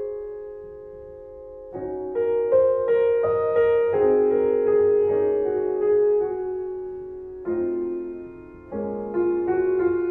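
Background piano music: single notes and chords struck and left to ring away.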